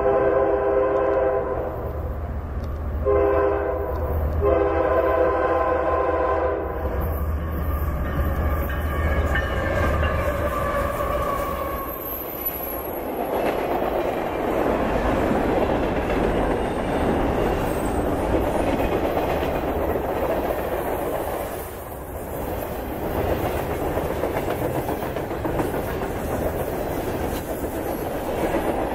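Freight train passing close by at speed: the diesel locomotive's horn sounds a long, a short and a long blast over the engine's low rumble, its pitch dropping as the locomotive goes by. Then the freight cars roll past with a steady clatter of wheels on rail.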